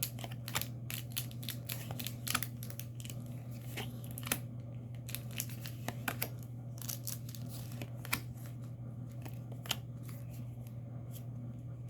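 Trading cards and foil booster-pack wrappers being handled: a stream of light clicks and ticks, thinning out in the second half, over a steady low hum.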